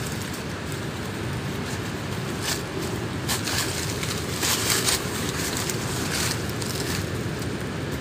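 Dry leaves and branches rustling and crackling in short bursts as people move through thick scrub, over a steady rushing background noise.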